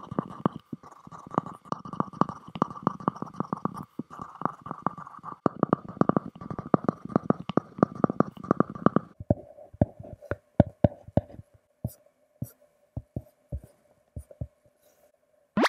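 Apple Pencil writing on an iPad screen: a fast run of taps and scratchy strokes of the stylus tip on the glass. About nine seconds in the writing stops, and sparser single taps on the screen follow.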